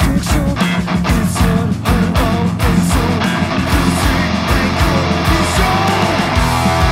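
Progressive rock band playing: electric guitars over a drum kit, with drum hits keeping a steady, driving beat.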